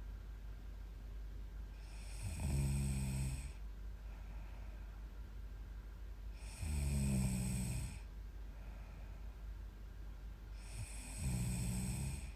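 A young woman snoring in her sleep: three loud snores, each over a second long, coming about every four and a half seconds, with quieter breathing between them.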